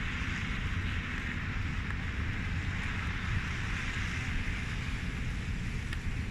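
Winter storm wind blowing steadily, buffeting the microphone with a low rumble under a broad hiss.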